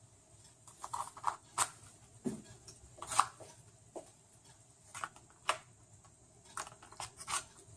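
Irregular small clicks and taps of a mirrorless camera being handled as its battery is pushed into the battery compartment, about a dozen scattered sharp clicks.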